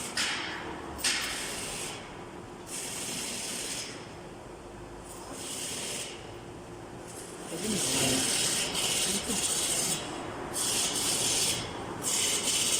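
Repeated hissing, scrubbing noises from cleaning an engine sensor, coming in bursts of about a second each with short gaps between them.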